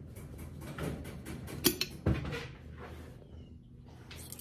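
Hands handling and turning an insulated stainless steel bottle, with rubbing and handling noise and two sharp knocks or clicks about half a second apart near the middle.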